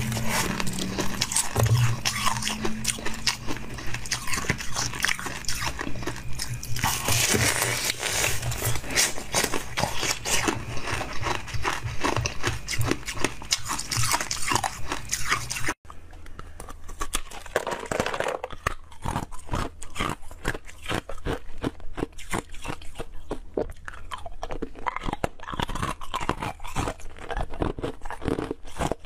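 Ice being bitten and chewed close to the microphone, a dense run of crisp crunches: first a block of frozen milk ice, then, after an abrupt change about halfway through, ice cubes.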